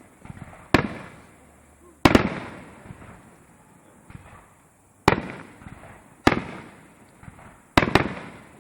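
Fireworks display: firework shells bursting in about six sharp bangs at uneven intervals, two of them in quick succession near the end, each trailing off in a rolling echo.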